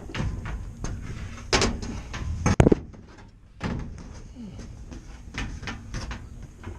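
Sheet-metal access panel of an HVAC unit being handled, a series of clanks and knocks with the loudest cluster about two and a half seconds in, then lighter ticks and rattles.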